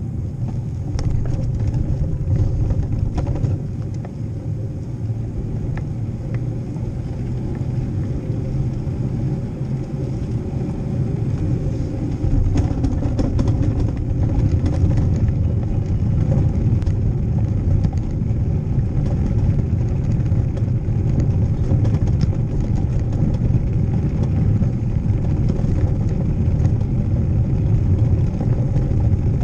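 Steady low rumble of wind and tyres during a bicycle ride over cobblestone paving, picked up by a bike-mounted GoPro action camera, with faint rattling clicks throughout. It gets louder about twelve seconds in.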